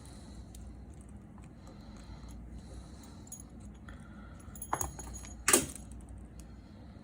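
Small metal tools and parts clinking and rattling on the handset during an iPhone repair, with two short, sharper clatters about two-thirds of the way through, the second the loudest.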